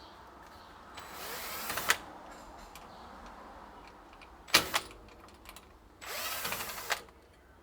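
Cordless drill-driver backing out the screws of an old storm door closer in two short runs of about a second each, with a couple of sharp clicks from the hardware in between.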